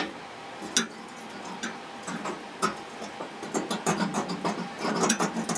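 Sharp clicks and clinks of hands working on the wiring and metal fittings inside a neon sign housing: a few single clicks, then a quick run of them in the last two seconds.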